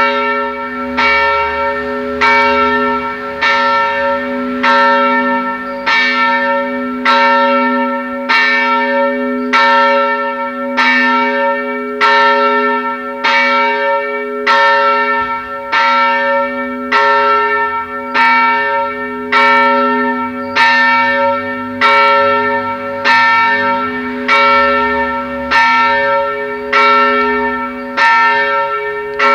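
A single large church bell tolling steadily, struck a little less than once a second at even spacing, each stroke ringing on into the next with the same deep tone.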